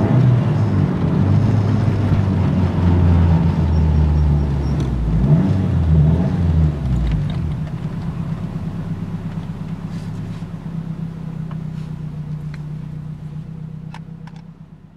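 Nissan 180SX engine and exhaust picked up by a microphone mounted on the outside of the car, with wind and road noise over it. The engine note drops about seven seconds in and settles to a quieter steady hum that fades away, with a few sharp clicks near the end.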